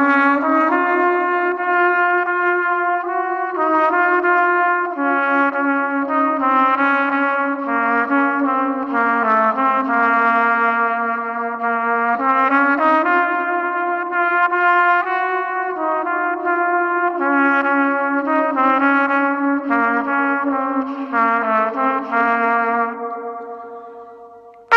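Trumpet played through chorus, delay and reverb effect pedals all at once. Its notes echo and pile up, so several pitches sound together over a long held tone. The sound fades away near the end as the echoes die out.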